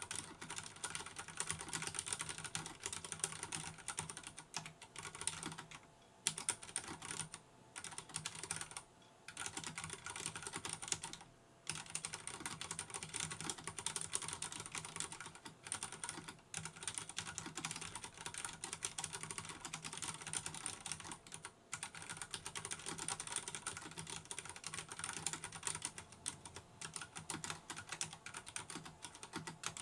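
Fast, continuous typing on a Vortex Race 3 RGB mechanical keyboard with Cherry MX Brown tactile switches: a dense patter of key clicks, broken by a few brief pauses.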